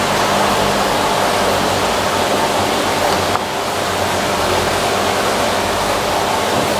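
Steady, loud rushing noise with a faint low hum underneath, unbroken throughout.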